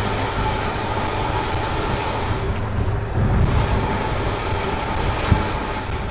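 Steady low hum and noise of a running bus, with no sudden events.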